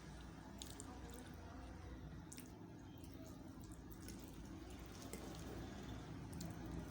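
Faint wet eating sounds: a few scattered small, sharp clicks over a low steady hum.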